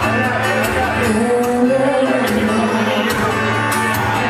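A woman singing to her own strummed acoustic guitar, with a held, gliding vocal note about a second in.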